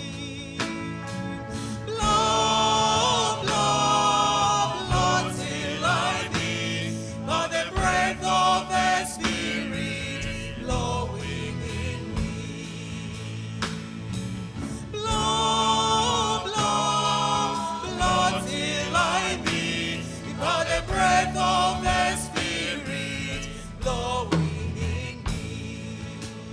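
A vocal group singing a gospel hymn with instrumental accompaniment, in phrases a few seconds long.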